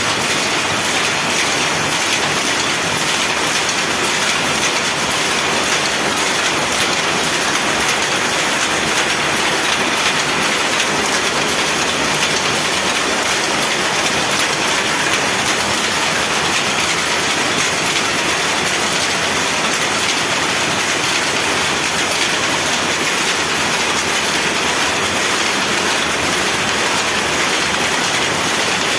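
Power loom with a jacquard head running at full speed: a loud, steady, fast mechanical clatter that never lets up.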